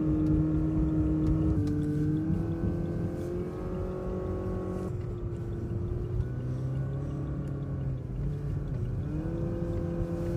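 A car's engine running as it climbs a long hill road, a steady hum over a low road rumble, its pitch shifting in steps a few times as the load and speed change.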